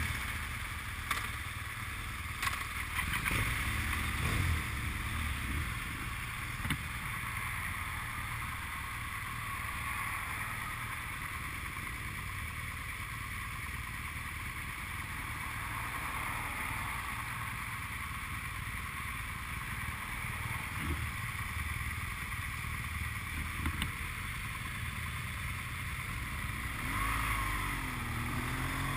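Steady road and wind noise from a moving vehicle, with a constant low rumble.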